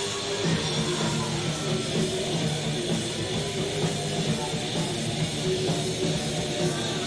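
Thrash metal band playing live: distorted electric guitars riffing over a drum kit.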